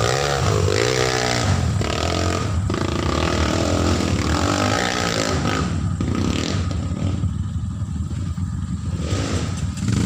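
Dirt bike engine revving, its pitch rising and falling, then running lower and duller for a few seconds in the second half before picking up again near the end.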